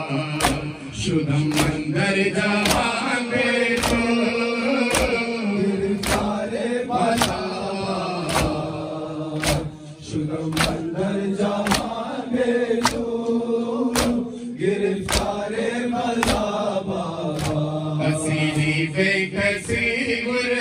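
A man sings a Farsi noha, a lament, through a microphone while a crowd of men chants along. Their hands strike their chests in unison about once a second, the beat of matam.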